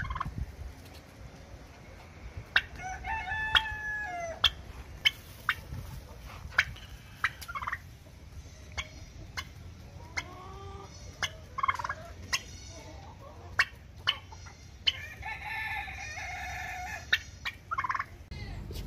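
A turkey pecking at scattered corn on hard dirt, its beak strikes heard as sharp taps every second or so. Poultry calls come in now and then, the longest about fifteen seconds in, over a low wind rumble on the microphone.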